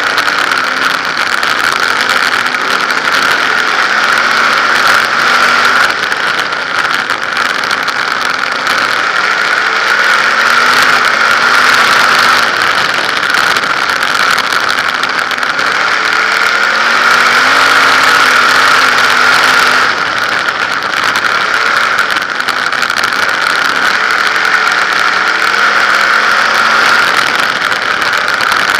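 A 360 winged sprint car's V8 engine at racing speed, heard from the car itself, its pitch climbing and dropping again every few seconds as it laps the dirt oval, over a steady high rush.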